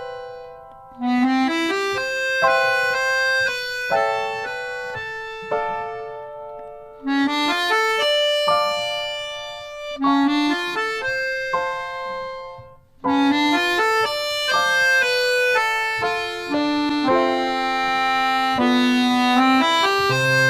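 Instrumental background music: a melody of held notes in phrases that begin again every few seconds, several opening with a short rising run.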